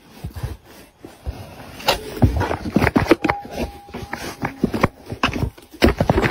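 Irregular scraping and knocking of cardboard as a black-and-white cat moves about inside a cardboard box, denser after about two seconds, with a short steady tone a little after three seconds.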